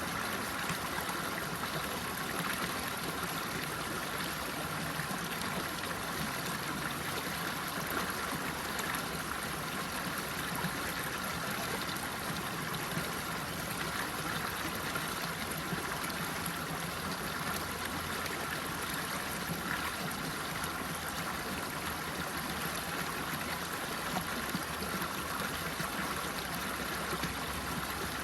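Running water flowing in a steady, unbroken rush with no changes.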